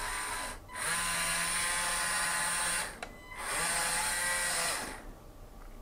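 The electric motors of a LEGO Technic 42100 Liebherr R9800 model excavator running with a steady high whine as they drive the boom and bucket. They run in three spells with short stops between them and go quiet about five seconds in.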